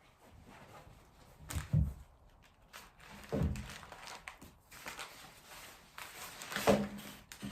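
Handling sounds in a small room: three dull thunks, with quieter rustling and knocking between them, as objects are moved and set down.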